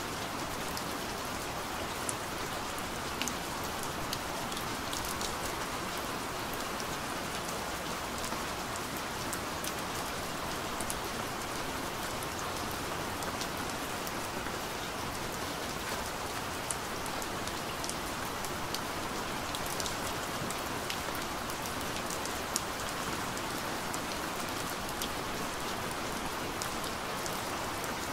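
Steady rain falling: a dense, even hiss with scattered sharp ticks of single drops.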